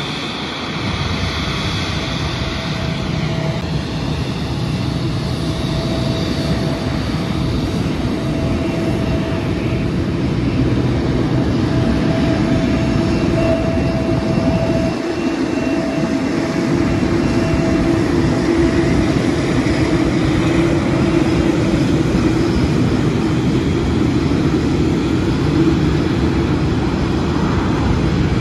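Japan Airlines Boeing 787's GEnx turbofan engines running at taxi power as the airliner turns close by: a steady jet whine and rumble with a faint high tone, growing slowly louder.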